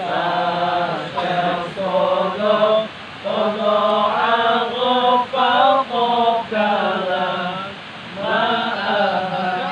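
A voice chanting in short melodic phrases over a steady low hum, pausing briefly about three seconds in and again near eight seconds.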